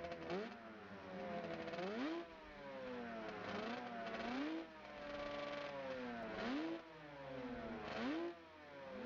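Motorcycle engine revving up sharply and then easing off slowly, about five times in a row, as the bike is ridden.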